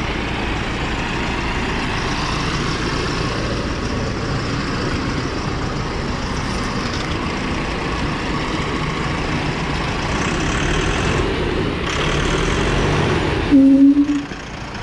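Mahindra 7095 tractor's CRDI diesel engine running steadily as the tractor drives and turns close by, growing a little louder as it passes. Near the end comes a short loud tone.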